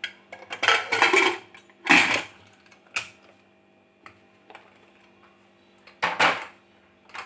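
Aluminium pressure cooker lid being fitted and locked shut: metal scraping and clanking against the pot, a sharp clack about two seconds in and a click a second later. Near the end comes a further scrape and knock as the cooker is lifted off the stone counter.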